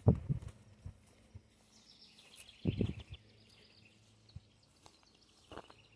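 Footsteps on the ground: a few heavy thuds near the start and again about halfway through, with faint high chirping and, from about halfway on, a faint steady low hum.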